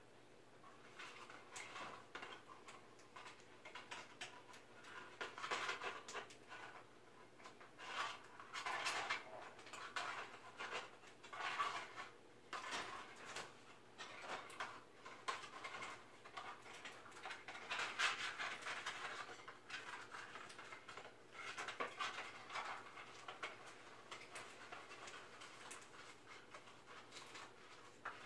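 Umbrella cockatoo chewing and tearing at a cardboard tube: irregular bouts of crunching and scraping with small clicks, loudest about eighteen seconds in.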